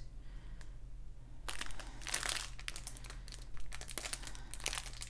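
Clear plastic bags of diamond-painting drills crinkling as they are handled and fingered through. The crinkling starts about a second and a half in, in irregular bursts.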